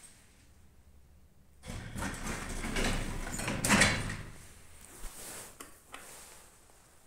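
Passenger elevator's automatic sliding doors closing: a rumbling, rattling run of a couple of seconds that peaks as the panels come together about four seconds in. A few light clicks follow.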